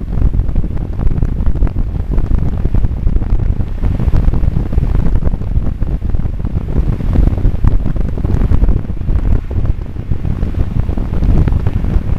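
Wind buffeting the microphone of a camera mounted on a moving car: a loud, unsteady low rumble that swells and dips throughout.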